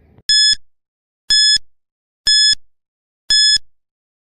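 Quiz countdown-timer sound effect: four short electronic beeps, about one a second, ticking off the seconds. A loud, low time-up buzzer cuts in at the very end.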